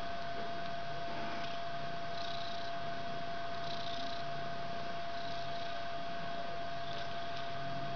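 Mother cat purring in low, pulsing stretches while her kittens nurse at her, over a steady high electrical hum.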